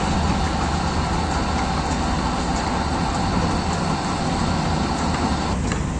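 Steady din of a construction site: a continuous low machinery rumble with a broad noisy wash over it.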